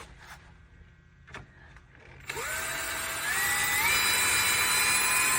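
Cordless drill driving a screw into an office chair's arm pad, starting about two seconds in. Its motor whine steps up in pitch twice as it speeds up.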